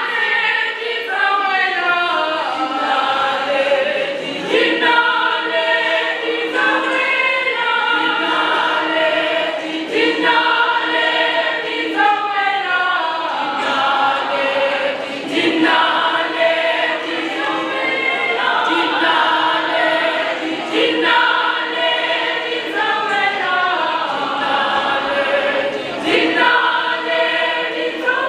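Large mixed choir singing in harmony without instruments, many voices together in a sustained song.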